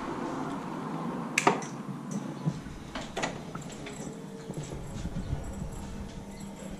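Handling and movement noise: a sharp click about a second and a half in, the loudest sound, another click about three seconds in, and lighter taps and shuffling around them.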